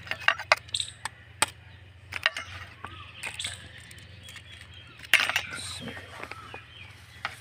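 An egg tapped and cracked against a steel bowl, making a few sharp clicks, then hands kneading a crumbly dough mixture in the bowl, with a louder clatter about five seconds in.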